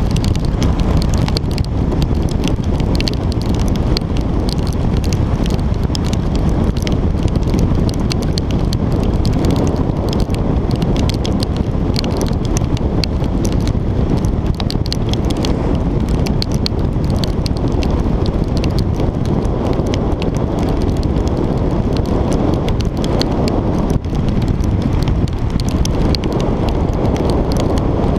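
Steady wind rush buffeting a bike-mounted action camera's microphone while riding at speed in rain, with a constant fine crackle of raindrops striking the camera.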